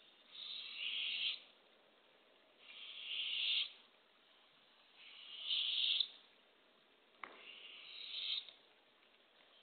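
Barred owlet's raspy, hissing begging call, given four times, each about a second long, swelling and then cutting off: a hungry nestling begging for food. A single sharp tap sounds just after the third call.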